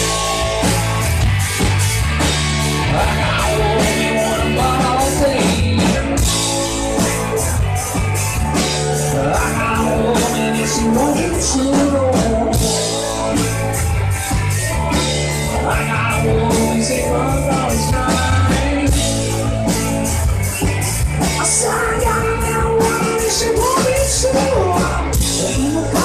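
Live rock band playing: electric guitars over a drum kit, steady and loud throughout.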